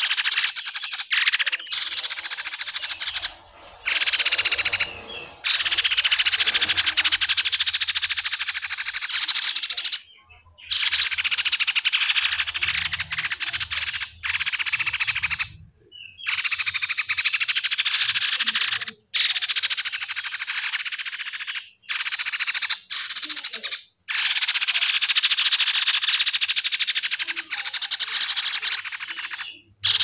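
Fledgling songbirds begging for food: long runs of rapid, harsh, high-pitched chirping, broken every few seconds by brief pauses.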